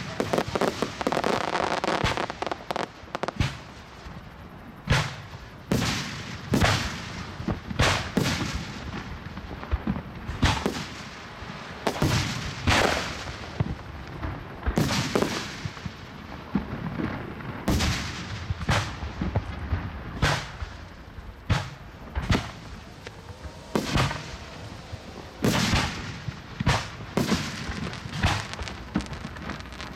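Aerial fireworks bursting overhead in a continuous run of sharp bangs, roughly one or two a second, each trailing off briefly.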